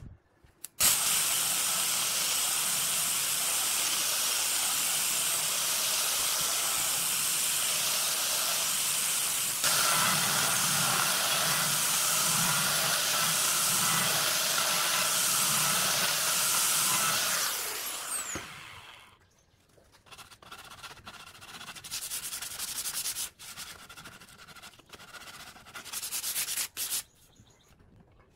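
Angle grinder with a sanding disc sanding the edge of a plywood board: it starts about a second in, runs steadily for about 17 seconds, then winds down with a falling whine. Irregular rubbing and scraping sounds follow.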